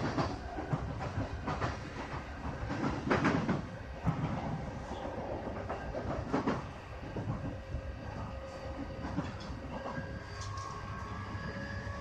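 E531 series electric commuter train heard from inside a motor car while running: a steady rumble of wheels on rail with a few sharp knocks over the first several seconds. Near the end a steady electric whine sets in.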